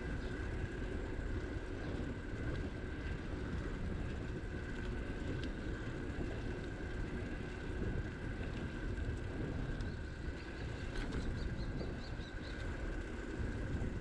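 Wind and tyre rumble on the microphone of a camera riding on a moving bicycle on an asphalt path, steady throughout, with a faint steady whine above it. Near the end comes a short run of quick, high ticks.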